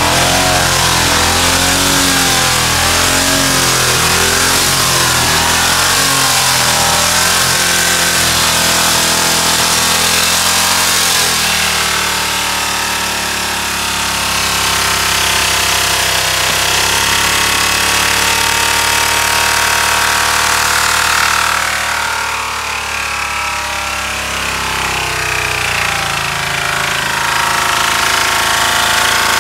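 Ford F-150 engine running with limestone mixed into its oil, being run to destruction. For the first ten seconds or so it revs up and down, then it settles to a steadier speed.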